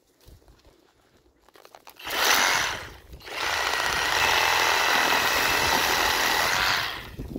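SKIL SW1E3475CA 20V brushless cordless reciprocating saw cutting a branch. A short burst comes about two seconds in, then the saw runs steadily for about three and a half seconds before stopping near the end, with a faint steady motor whine under the blade noise.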